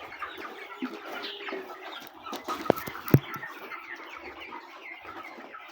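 A flock of four-week-old chickens clucking and peeping without a break. Two sharp clicks, a little under half a second apart, come near the middle.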